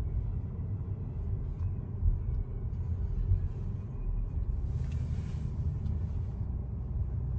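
Steady low rumble of a car's engine and tyres on the road, heard from inside the cabin while driving, with a brief hiss about five seconds in.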